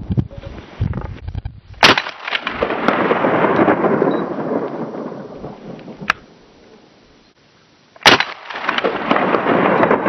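Two gunshots, about six seconds apart, each followed by a long rolling echo that dies away over several seconds. The second shot knocks over the V8 can target.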